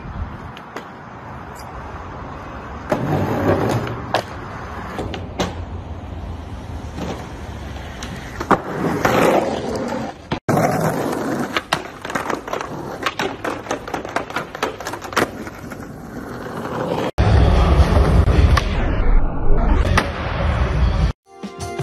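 Skateboard wheels rolling on rough ground, with repeated sharp clacks and slaps of the board being popped and landed. Near the end comes a louder, deeper rumble of wheels on a smooth concrete skatepark floor.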